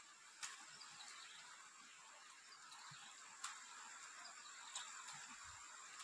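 Near silence: a few faint cracking clicks of boiled eggshells being peeled by hand, over a steady high hiss.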